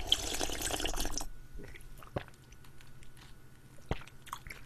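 A person slurping and swallowing pork-and-rice soup broth straight from the bowl for about the first second, followed by a few small clicks and mouth sounds.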